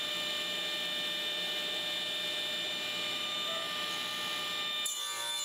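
Table saw motor and blade spinning freely, not yet cutting: a steady hum with several high whining tones.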